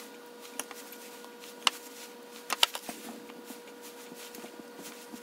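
Quiet room tone with a steady faint electrical hum, and a handful of light clicks and taps, most within the first three seconds, as fruit slices are set by hand on a cream-covered cake.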